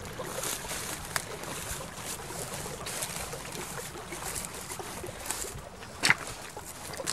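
Footsteps rustling and crunching through dry grass along a shallow creek, with the creek water trickling. A sharp snap about six seconds in, and a smaller one about a second in.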